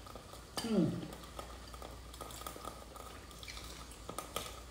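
Close-up eating sounds: noodles being slurped and chewed, with light clicks of a metal fork and chopsticks against ceramic bowls. A short falling 'mmm' of a voice comes about a second in.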